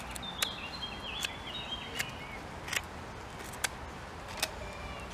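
Ceramic knife blade carving a wooden stick in six short strokes, a little under a second apart. Each stroke gives a sharp scrape-click. Bird chirps are heard during the first two seconds.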